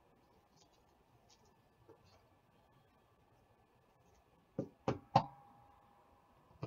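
Faint crinkling of a trading card being slid into a soft plastic sleeve, then three quick sharp knocks of the sleeved card and a hard plastic top loader against the tabletop, the last the loudest.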